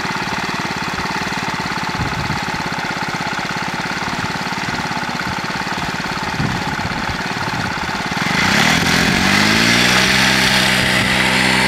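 Motorbike engine idling with a steady fast pulse, then revving up about eight seconds in, its pitch rising and then holding as the bike pulls off.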